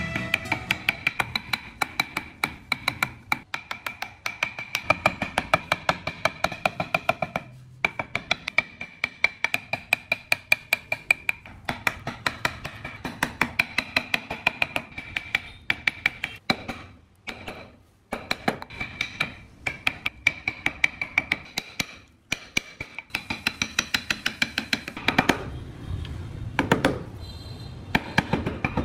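Steel carving chisel being struck in quick, even taps, about three or four a second, each tap ringing, with a few short breaks. The chisel is cutting into Fokienia wood.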